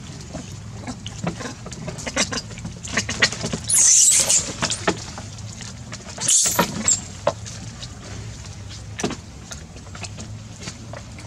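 Macaques scuffling over food at close range: scattered clicks and crackles over a steady low hum, with two brief high-pitched noisy bursts, about four seconds in and again about six and a half seconds in.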